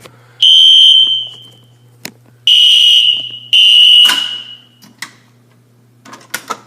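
Fire alarm sounder blasting a loud, high, shrill tone three times, once about half a second in and twice more back to back around three seconds in, each trailing off as it echoes. The alarm is set off by pulling a zone 2 manual pull station with the system in test mode; a few sharp clicks from handling the pull station fall between and after the blasts.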